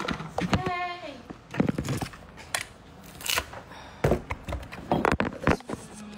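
Brief indistinct talking, with scattered clicks, knocks and rustles from the phone being handled and moved.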